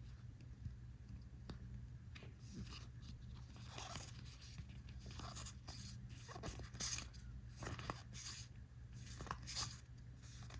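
Trading cards and booster-pack wrappers being handled: a string of short, dry swishes and scrapes as cards slide against one another, more frequent in the second half, over a low steady hum.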